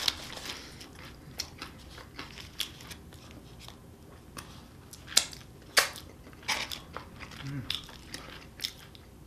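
Close-miked mouth sounds of a person eating a burger: irregular wet clicks and smacks of biting and chewing, sharpest about five to six seconds in.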